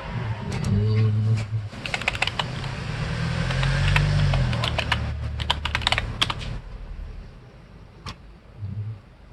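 Typing on a computer keyboard: a run of quick key clicks for about six seconds, then a single click near the end.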